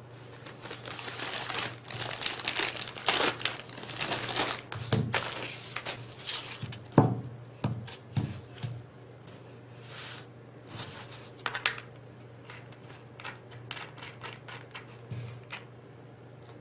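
Clear plastic packaging bag crinkling and rustling as it is opened and a velcro sanding pad pulled out, with one loud thump about seven seconds in. After that, sparser light clicks as the pad is handled.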